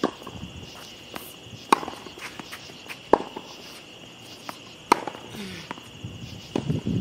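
Tennis groundstroke rally on a hard court: sharp pops of the ball off Head racquets' Kirschbaum strings and off the court, the four loudest spaced about one and a half to two seconds apart, with fainter bounces and shoe scuffs between. Crickets chirr steadily underneath.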